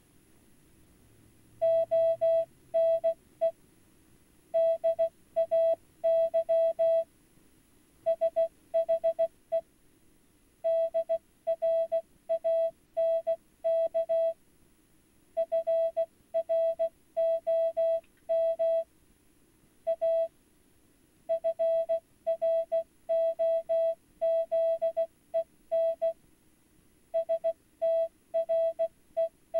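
Single-pitched electronic beeps of mixed short and long lengths, sounding in irregular groups separated by pauses, like coded or stand-in speech, over a faint low hum.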